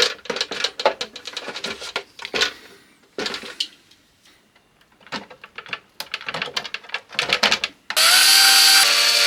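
A series of irregular clicks and taps from handling the parts, then about eight seconds in an electric drill starts running steadily as it drills holes in the RC car's Lexan body, its pitch shifting slightly a second later.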